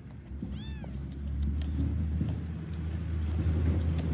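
A motor vehicle engine rumbling low and steady, building in about half a second in. Over it come faint small clicks of chewing and one brief faint cat meow near the start.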